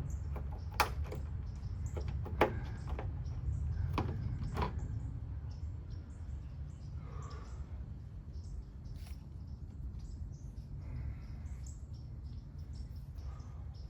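Handwork on a plastic trunk-lid handle: several sharp clicks in the first five seconds, the loudest about two and a half seconds in, then faint squeaky rubbing as the sticky rubbery coating is scraped and wiped off. A steady low hum lies underneath.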